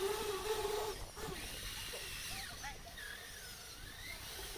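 Small electric motors of a radio-controlled construction model whining. There is a steady whine for the first second, then thinner, higher whines that rise and fall in pitch as the motor speed changes.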